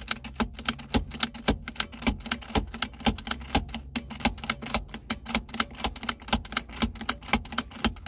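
A Subaru Crosstrek's seat-belt latch plate being pushed into the buckle and released over and over, a rapid run of sharp clicks, several a second. The buckle is being cycled 20 times within 30 seconds with the ignition on, to switch off the seat-belt reminder chime.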